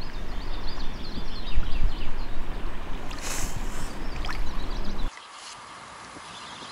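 Wind buffeting the microphone in a steady, loud rush with a low rumble, small birds chirping through it. About five seconds in it drops suddenly to a much quieter outdoor background with faint birdsong.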